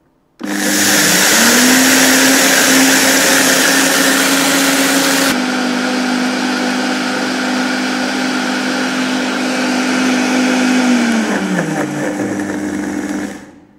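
Oster Versa 1400-watt blender spinning up at mid speed and milling dry rice into flour, the motor's whine rising quickly to a steady pitch over a loud grinding hiss of the grains. The hiss drops abruptly about five seconds in, and near the end the blender is switched off and the motor winds down with falling pitch.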